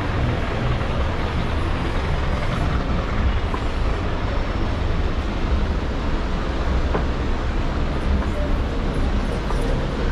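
Steady city street traffic noise, with a low rumble underneath.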